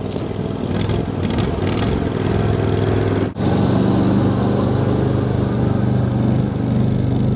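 Argo amphibious ATV's engine running with a steady drone as it drives past, with a brief break a little over three seconds in.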